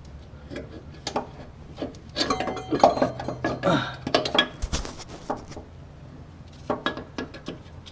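Metal clinks, scrapes and knocks of a shock absorber and its mounting hardware being worked into place in the front suspension, busiest in the middle with a single dull thud near the middle.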